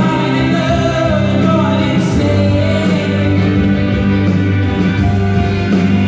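Live indie rock band playing, recorded from the crowd on a phone: strummed acoustic guitar, electric guitars and a singing voice, with steady loudness and no break.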